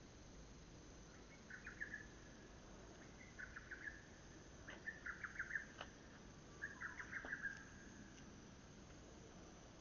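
Lesser cuckoo (hototogisu) calling: four quick staccato phrases, each under a second, about one and a half seconds apart.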